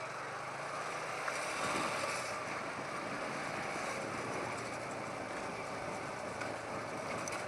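TVS Apache RTR 180 motorcycle's single-cylinder engine running steadily while riding, under a steady rush of wind and road noise.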